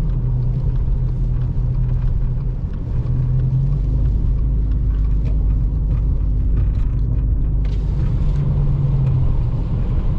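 Car driving on a wet road, heard from inside the cabin: a steady low engine and tyre rumble, with an added engine tone for a few seconds midway and faint scattered ticks.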